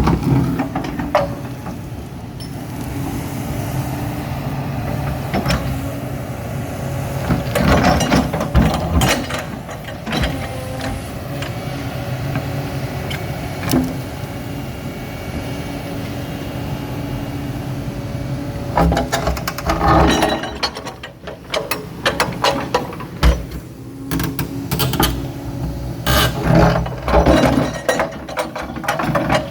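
Excavator engine running steadily, with three bouts of loud knocking and scraping as the bucket works against a massive rock.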